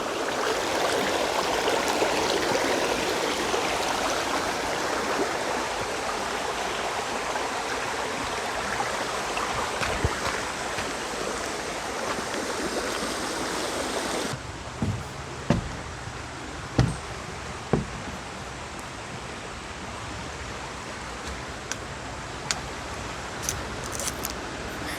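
Creek water rushing steadily. About halfway through it becomes abruptly quieter, and a few short thumps come close together, then some faint clicks.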